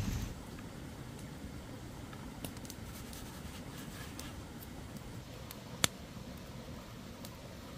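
Hand brushing flour across a wooden board, faint scratchy rubbing with scattered light taps, and one sharp tap about six seconds in as the ball of dough is set down on the board.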